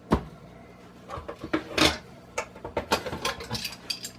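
Screw being driven by hand through a metal corner bracket into a wooden 2x4: a string of irregular clicks, ticks and creaks.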